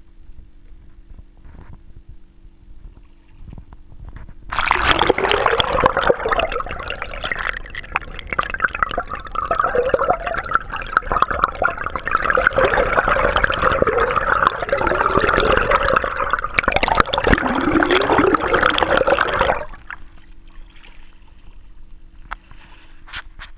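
Water rushing and gurgling against a GoPro's waterproof housing while the camera is underwater: a loud, even wash with crackling clicks that starts suddenly about four seconds in and cuts off suddenly about twenty seconds in, as the camera comes back out.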